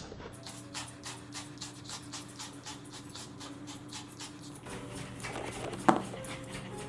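Pomeranian panting rapidly, about four breaths a second, because it is overheated and excited. There is a single sharp knock about six seconds in.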